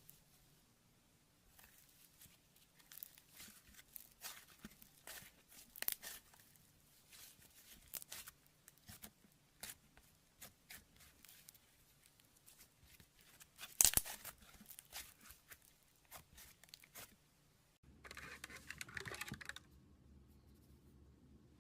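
Slime being handled: an irregular run of small crackles and pops, with one sharp pop about two-thirds of the way through, then a short rustle near the end.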